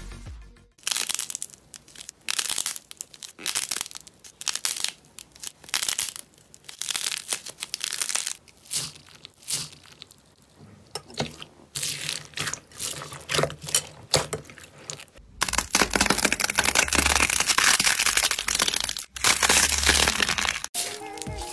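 Crunchy slime being worked: runs of quick, irregular crackling and crunching clicks that thicken about fifteen seconds in into a dense, continuous crunch, broken briefly near the end.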